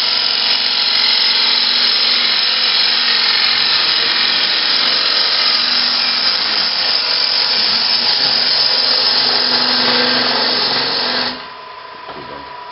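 Gouge cutting across the face of a bowl blank spinning on a wood lathe in a push cut, riding the bevel: a loud, steady sound of wood being cut that stops suddenly about eleven seconds in as the tool leaves the wood. After that the lathe runs on more quietly with a thin steady whine.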